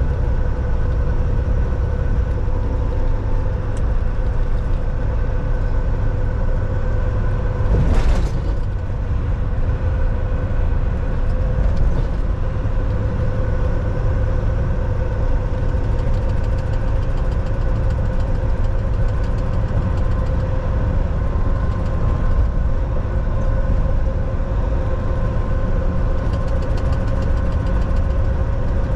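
Volvo semi truck's diesel engine running steadily under way, a continuous drone with road rumble. About eight seconds in there is a brief burst of noise.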